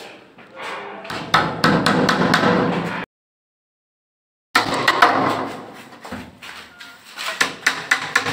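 Quick, light hammer taps driving small nails through a wooden edge strip into the edge of a plywood door, over background music. The sound drops out completely for about a second and a half a few seconds in, then the tapping picks up again near the end.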